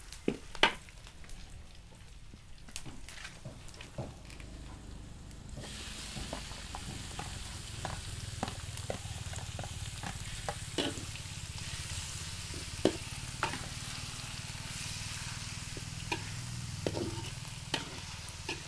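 Sliced chicken stir-frying in a large aluminium wok: a steady sizzle that gets louder about five and a half seconds in. A metal spatula clinks and scrapes against the pan throughout.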